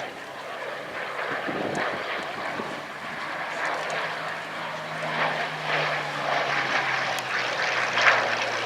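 Hawker Sea Hurricane's Rolls-Royce Merlin III V12 engine droning steadily as the fighter flies its display, growing louder and loudest near the end.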